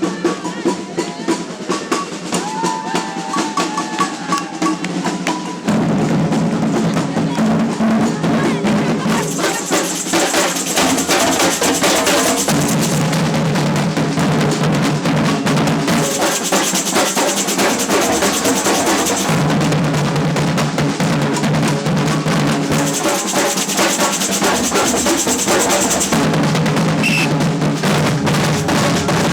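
Samba percussion band (batucada) playing a funk-style groove. For the first six seconds it plays lighter, then the whole band comes in louder, with deep bass drums changing pattern every few seconds under dense snare and high drums.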